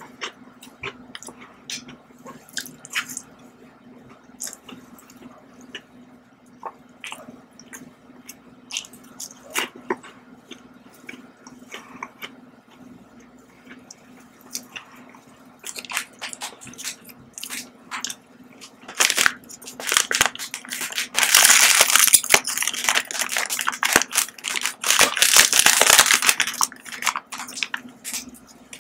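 Close-up chewing and small mouth clicks of someone eating candy. From about two-thirds in, loud crinkling of a plastic snack wrapper being torn open, lasting several seconds. A faint steady low hum runs underneath.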